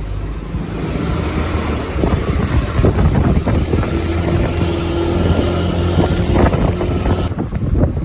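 Wind buffeting the microphone during a motorbike ride, with the bike's engine running underneath and a steady engine tone for a few seconds in the middle.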